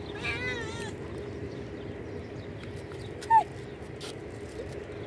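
Cats meowing for food: a high, wavering meow in the first second, then a short, louder falling call about three seconds in.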